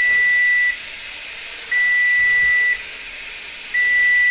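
An electronic alarm beeping: a steady high tone about a second long, repeating every two seconds, three times. Underneath, a faint steady hiss of the venison sizzling in the hot pan.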